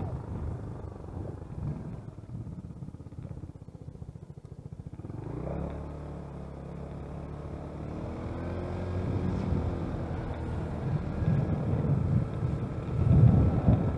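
Wind buffeting the microphone of a camera on a moving vehicle. From about five seconds in, a steady engine hum comes through, its pitch drifting slightly. The buffeting grows loud again near the end.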